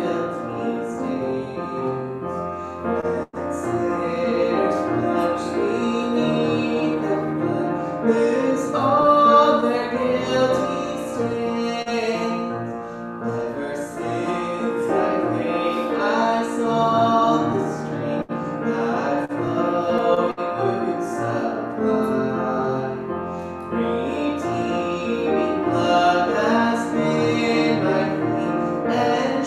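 Upright piano playing, with a singing voice over it. The sound drops out for a split second about three seconds in.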